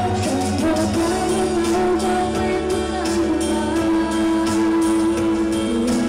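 Female idol group singing a pop song live into microphones, with long held notes over a backing track with a steady beat.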